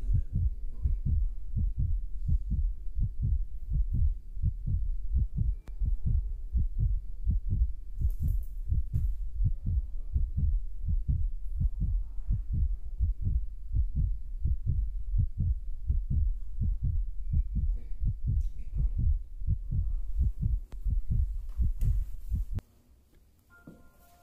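Heartbeat sound effect: steady low thumping, about two thumps a second, which cuts off abruptly near the end and gives way to faint steady electronic tones.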